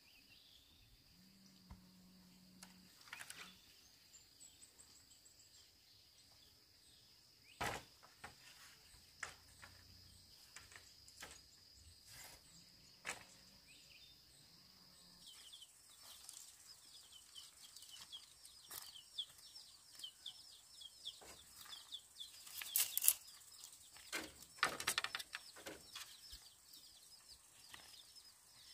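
Scattered sharp knocks and taps of bamboo poles being handled on a bamboo trellis frame, loudest about a third of the way in and near the end. A steady high whine runs through the first half, and from about halfway a run of quick, repeated bird chirps.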